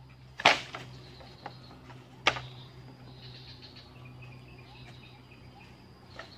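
Two sharp knocks of dry bamboo poles, the first about half a second in and the louder, the second about two seconds later, with a few faint ticks after. Insects chirr steadily in the background.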